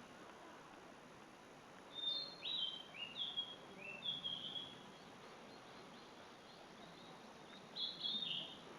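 A small songbird singing in forest: a string of about five quick, high whistled notes starting about two seconds in, then a shorter burst of notes near the end, over a faint steady background hiss.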